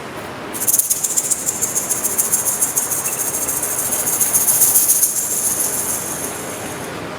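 Rapid, dense shaking of a rattle-type foley percussion instrument: a hissing clatter that starts about half a second in, grows louder, then fades near the end.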